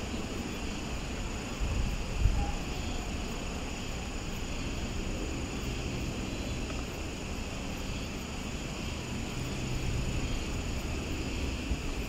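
Crickets chirring steadily in several high tones over a low wind rumble, with a brief gust about two seconds in.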